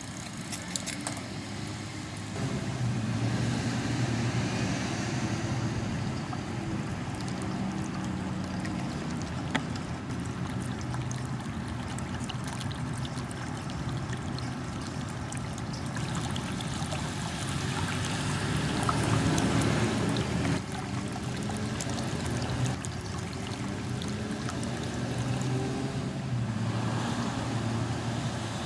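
Water trickling from a garden urn fountain, with road traffic going by in the background.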